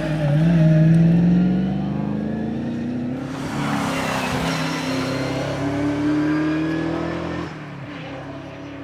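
Holden Torana rally car's engine accelerating hard, its pitch climbing twice as it pulls up through the revs, with a loud rushing noise joining in about three seconds in. The engine backs off suddenly near the end.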